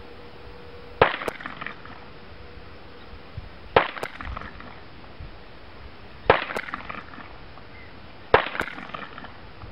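Four single shots from a Sig Sauer Mosquito semi-automatic .22 LR pistol, fired slowly two to three seconds apart, each a sharp crack with a short echo.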